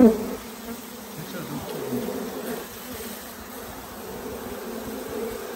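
A mass of honeybees from a freshly installed package buzzing over an open hive: a steady, low, even hum.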